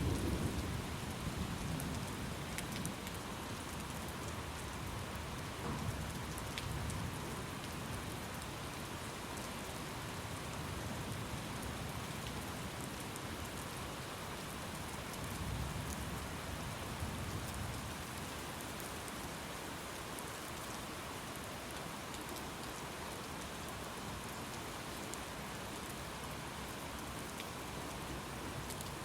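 Steady rain falling, with a low rumble of distant thunder swelling near the start and again about halfway through.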